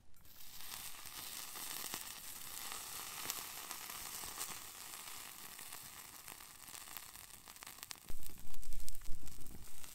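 Pork chop sizzling on the hot stainless-steel grill plate of a Firebox 5-inch wood-burning stove, the sizzle starting the instant the meat goes down and carrying on steadily. A louder low rumble comes in for the last two seconds.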